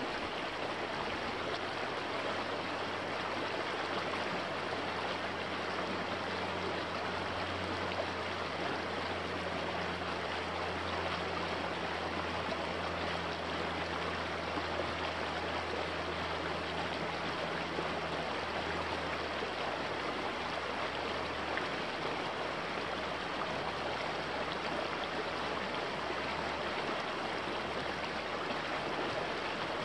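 Small shallow creek rushing over rocks: a steady, even sound of running water. A faint low drone sits beneath it for the first part and fades out about two-thirds of the way in.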